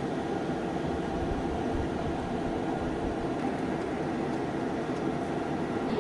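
An F-22 Raptor's twin Pratt & Whitney F119 turbofan engines running: a steady rush of jet noise with a low rumble under it.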